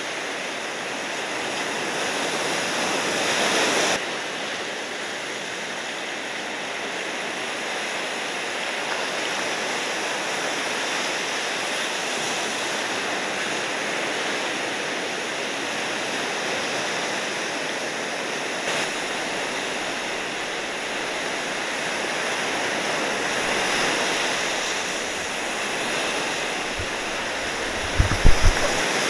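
Steady rushing of ocean surf, breaking waves and whitewater, swelling louder for a few seconds now and then, with a few low thumps near the end.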